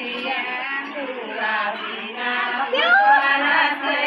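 A group of women's and children's voices singing and talking over one another, with a voice sliding upward in pitch about three seconds in as the group gets louder.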